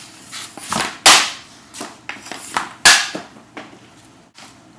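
Vapor X60 hockey stick shooting pucks: two loud sharp cracks about a second and just under three seconds in, with lighter clicks and knocks of the stick and pucks in between.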